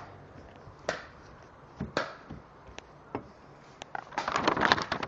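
Sheets of paper being handled: scattered light taps and clicks, then a burst of rustling and crackling about four seconds in as a sheet is torn.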